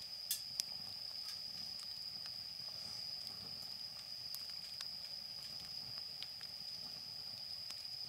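Wood bonfire crackling, with scattered sharp pops, two stronger ones in the first second, over a steady high thin tone.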